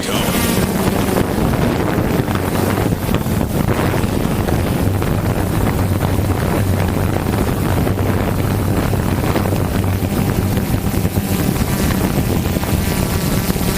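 Steady hum of a camera drone's propellers in flight, with wind noise on the microphone.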